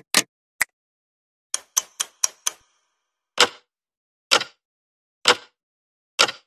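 A string of sharp clicks with silence between them: two or three at the start, a quick run of five around two seconds in, then four more spaced about a second apart.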